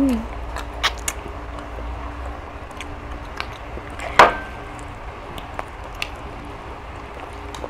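Small clicks and taps of people eating at a table, with one sharp clink about four seconds in that rings briefly, over a steady low hum.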